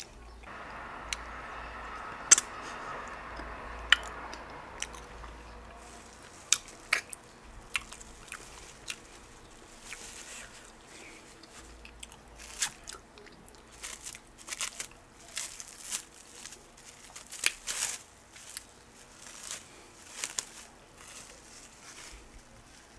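Close-miked eating sounds of okra soup and garri eaten by hand: wet chewing and lip smacks. The sharp smacks come thicker from about six seconds in.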